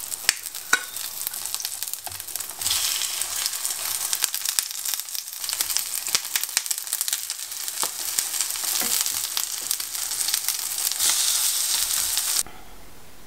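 Egg-battered oyster pancakes sizzling in oil in a frying pan, with scattered pops and clicks as a wooden spatula and chopsticks turn them over. The sizzle grows louder about two and a half seconds in and cuts off suddenly near the end.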